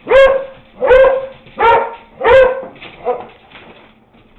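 Beagle barking: four loud, pitched barks about 0.7 seconds apart, then a shorter, fainter one about three seconds in.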